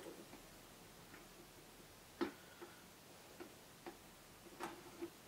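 Faint, irregular small clicks and ticks of a screw being turned out by hand from the casing of a QNAP TS-453 Mini NAS, with one sharper click about two seconds in.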